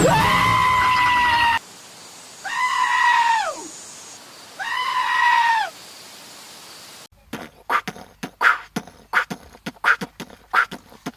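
A goat screaming three times: long, loud, human-like yells that hold their pitch and drop at the end. After a pause comes a rapid, uneven series of short sharp sounds from another source.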